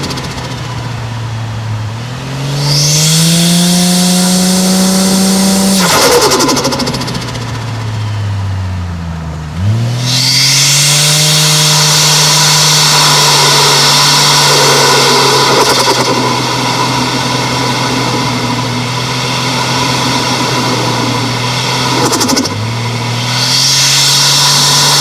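Toyota 1JZ-GTE turbocharged straight-six pulling hard through the gears, its note climbing in pitch in each gear, with turbo hiss under boost. The note falls sharply at each shift and a rapid turbo flutter chatters as the throttle closes, about three times.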